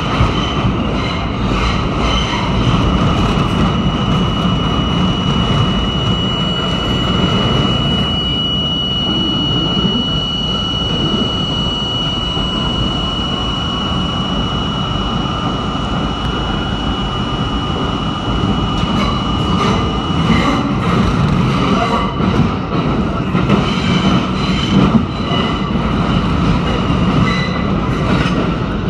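R32 subway train running through a tunnel, heard from inside the lead car: a steady low rumble of wheels and motors, with a steady high whine through the middle. From about two-thirds in, a run of sharp wheel clacks as the train crosses switches and rail joints.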